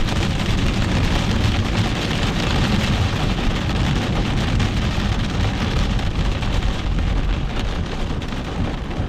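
Heavy rain falling steadily on a moving car, heard from inside the cabin, with the low rumble of the car on the road underneath.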